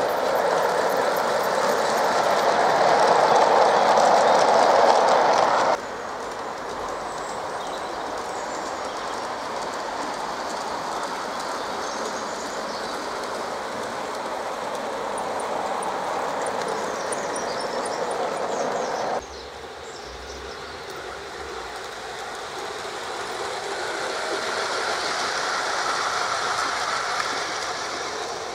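LGB battery-powered model narrow-gauge trains running on garden railway track: a steady rolling noise of wheels on the rails, loudest for the first six seconds as a train passes close. The sound drops abruptly about six seconds in and again about nineteen seconds in.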